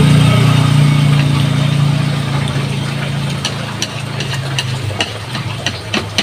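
A motor vehicle's engine running nearby with a steady low hum that fades away over about five seconds, as if moving off. Sharp light clicks come in near the end.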